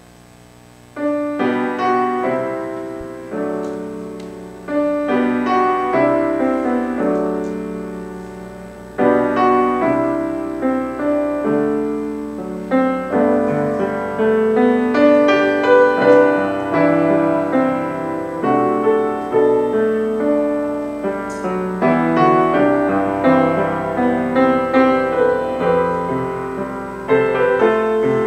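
Solo piano playing slow, calm music in chords, each struck note dying away. It starts about a second in.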